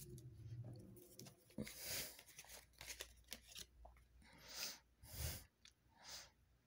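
Faint rustling and soft taps of tarot cards being handled and laid down on a satin cloth, in a few short bursts.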